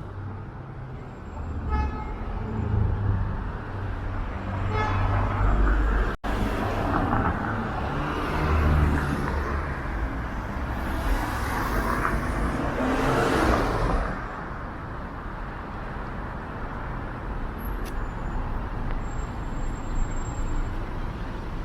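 City street traffic: cars passing with engine and tyre noise that swells and fades midway. A short pitched toot sounds about two seconds in.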